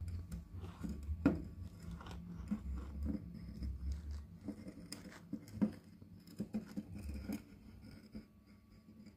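A metal carbide lamp being handled and turned by hand: scattered light clicks and taps, the sharpest about a second in and again around five seconds in, over a low handling rumble in the first half.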